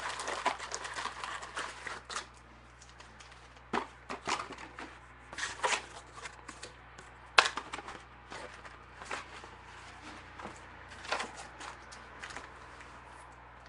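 Trading-card box and packs being handled and unwrapped: a crinkling plastic wrapper at first, then scattered rustles and clicks of cardboard and foil packs, with one sharp click about seven seconds in.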